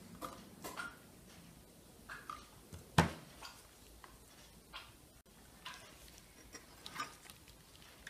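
Metal utensils, a knife and a slotted spoon, clicking and tapping against a metal baking tray of roast chicken, with one sharp knock about three seconds in.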